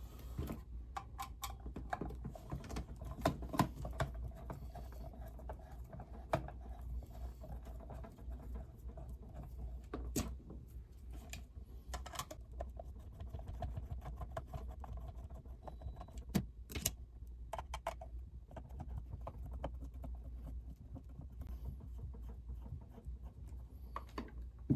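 Screws being removed from an alarm lock's cover by hand: scattered small clicks and metallic scrapes, with a few sharper clicks, over a low steady hum.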